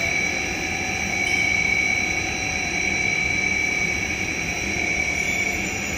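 Electric motor and hydraulic pump of a scissor lift's power pack running steadily: a high, even whine over a constant hiss.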